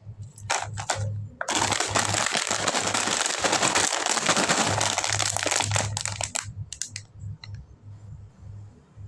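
Plastic snack packaging crinkling as it is handled: a few short crackles, then about five seconds of continuous loud crinkling that thins out into scattered crackles.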